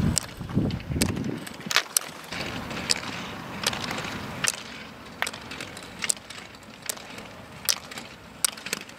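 Roller-ski poles' tips clicking sharply on asphalt with each double push, about once a second, over the steady rolling hiss of roller-ski wheels. A low rumble underlies the first second.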